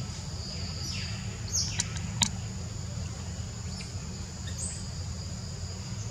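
Outdoor ambience of steady, high insect buzzing in two tones over a low steady rumble. There are a few short high chirps about a second and a half in and again near the end, and one sharp click about two seconds in.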